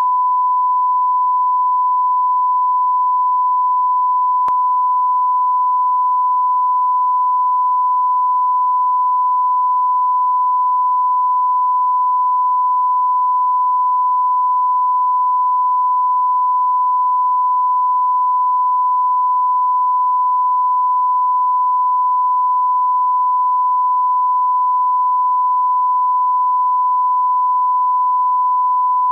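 Broadcast line-up tone: a steady, unbroken 1 kHz sine tone of the kind played with colour bars as a reference for setting audio levels.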